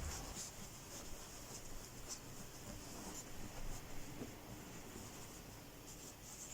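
Soft, irregular rustling and rubbing of a cloth towel being handled and folded by hand.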